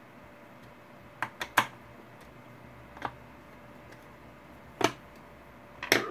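Clicks and light knocks from handling a wooden ghost-box case and a screwdriver. A quick run of three comes about a second in, then single knocks at about three and five seconds. The loudest clatter comes near the end, as the hinged wooden lid is shut and the screwdriver is laid down on the wooden bench.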